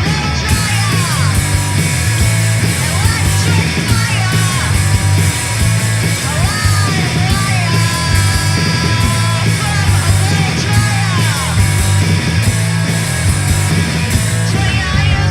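Punk rock song: a loud full band with distorted guitar and drums playing on without a break.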